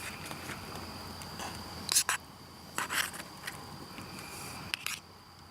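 Scattered scrapes and clicks of food being served out of an aluminium foil pouch, the loudest about two and three seconds in. A steady high thin whine runs underneath.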